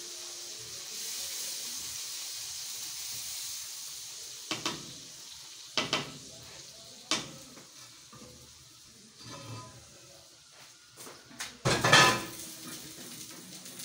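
Tadka of hot oil and fried cumin seeds sizzling as it is tipped from a tawa into a pot of kadhi, the hiss fading over the first few seconds. Then a silicone spatula knocks and scrapes against the tawa and the steel pots a handful of times, loudest in a clatter near the end.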